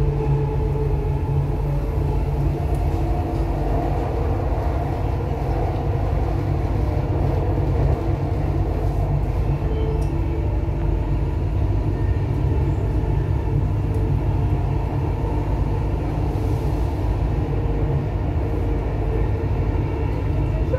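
Dubai Metro Red Line electric train running at speed on elevated track, heard from inside the car: a steady low rumble of wheels on rails, with faint humming tones coming and going above it.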